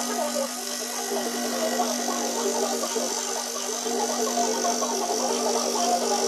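Scroll saw running with a steady electric buzz, its reciprocating blade cutting through a large board.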